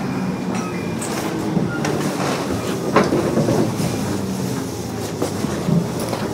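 Kintetsu 8800-series electric train with field-phase control, heard from inside the car, running as it nears a station stop. A steady rumble of wheels and motors, with irregular clacks over rail joints.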